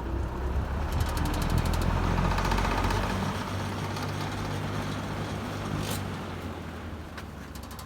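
Old Superlectric model 20655 box fan starting up: the motor hum swells over the first second, with a fast rattle as the blades come up to speed, then settles into a steady hum. A sharp click about six seconds in.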